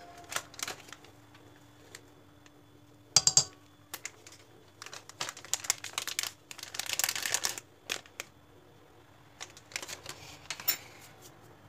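Scattered light clicks and taps with rustling, a sharp clatter about three seconds in and a denser run of tapping and rustling a little later: a spice container being handled as ground cinnamon is shaken into a steel mixer bowl.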